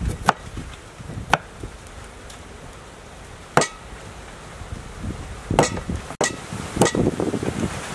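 A cleaver chopping down onto a thick round wooden chopping block: about seven sharp, irregularly spaced knocks as it cuts through a root.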